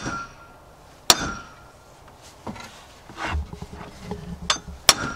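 Metal-on-metal strikes on a 1-7/16-inch wrench, tightening the fan clutch nut onto the water pump shaft. Two sharp, ringing blows come about a second in and near the end, with a few lighter clanks between.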